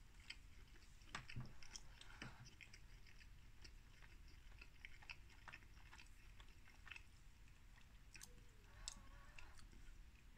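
A person faintly chewing a mouthful of microwaved beef vindaloo naan wrap, with irregular little mouth clicks as the bread is worked. The naan is really chewy.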